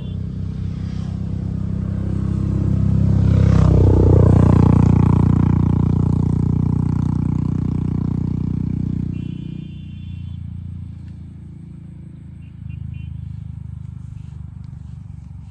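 A motor vehicle engine passing close by, growing louder to a peak about four seconds in and then fading away over several seconds.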